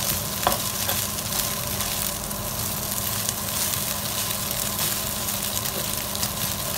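Rice and scrambled egg sizzling in a nonstick frying pan as a spatula stirs and turns it, breaking up clumps of rice: a steady frying hiss with a few faint ticks of the spatula.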